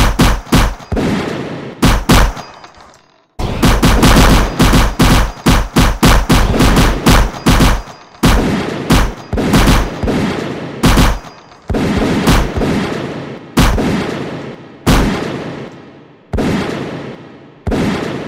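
Battle gunfire sound effect. A few shots and a brief gap open it, then a dense run of rapid shots lasts about four seconds, then single shots come about a second apart and thin out toward the end, each trailing off in an echo.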